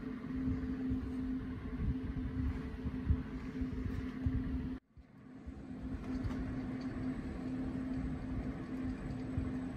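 Wood lathe running with a steady hum, turning a hollow mahogany barley-twist workpiece. The sound cuts out suddenly about five seconds in, then builds back up to the same steady hum over about a second.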